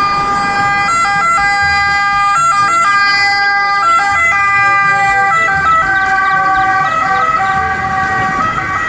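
Italian ambulance siren wailing loudly and steadily, its tones stepping back and forth between pitches.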